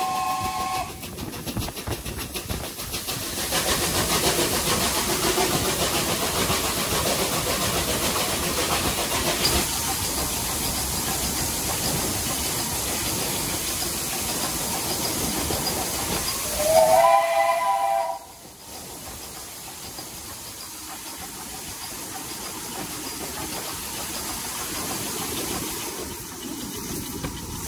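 BR Standard Class 2MT steam locomotive No. 78019 sounding its chime-like whistle, which ends about a second in. Then the train runs through a tunnel with a loud, even rush of noise. About 17 s in there is a second whistle blast, just over a second long and rising at its start, after which the level drops sharply to a quieter, steady running noise.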